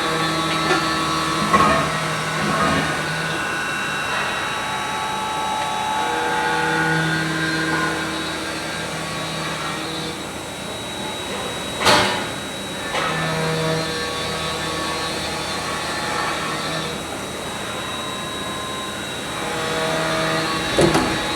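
CNC machine running with a steady mechanical hum and whine, its motor tones starting and stopping in stretches of a second or two. A sharp clack comes about twelve seconds in, and another near the end.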